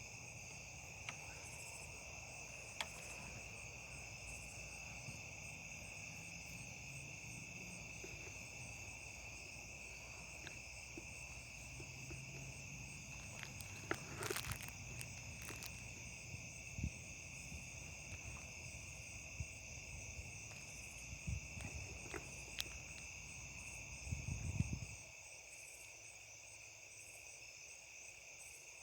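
Night chorus of crickets and other insects, a steady high trilling that does not let up. A few scattered clicks and rustles, the loudest a short low rustle near the end.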